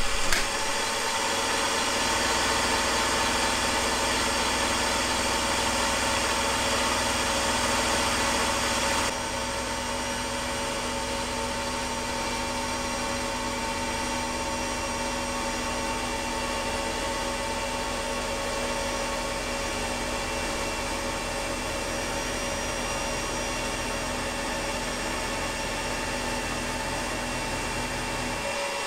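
Milling machine running, its end mill cutting the side of a thick aluminium plate: a steady machine hum with held whining tones and hiss. Louder and hissier for about the first nine seconds, then a slightly quieter, even run.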